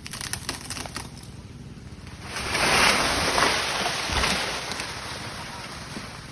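Leafy teak branch falling through the foliage after a chainsaw cut: a loud rush of leaves swells about two seconds in and ends with a low thud as it lands, then fades. Light crackling of twigs comes before it.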